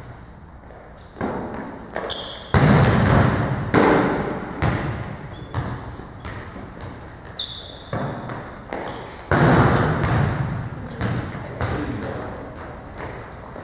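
Volleyballs smacking and bouncing on a hardwood gym floor, about a dozen hits that echo through the hall, the loudest about two and a half and nine seconds in, with short sneaker squeaks on the floor between them.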